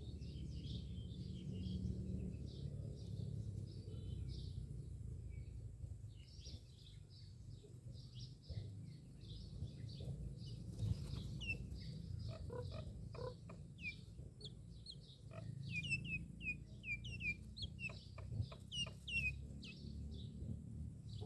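Myna birds calling: a string of short, high chirps and whistles. In the second half they come thick and fast, many of them falling sharply in pitch, over a steady low rumble.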